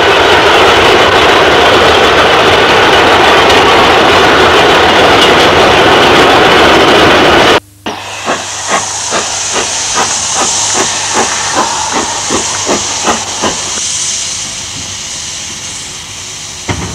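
A loud steady rushing noise, then an abrupt cut about seven and a half seconds in to a steam locomotive working slowly: steam hissing with sharp exhaust beats about two a second. The beats stop about six seconds later and the hiss fades away.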